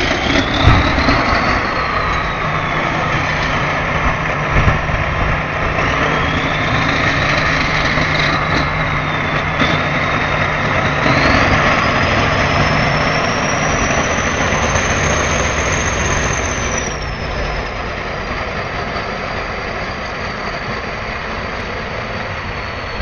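Diesel engines of a crawler bulldozer and a six-wheel dump truck working under load as the dozer pushes the truck, bogged in deep mud, from behind. A steady low engine hum runs throughout, with a thump about a second in; about halfway through a high whine rises, holds for several seconds and falls away.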